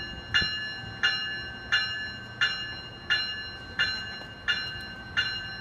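Metrolink diesel locomotive's bell ringing at a steady pace, about eight strokes roughly 0.7 s apart, each ringing on and fading before the next, over the low rumble of the train rolling into the station.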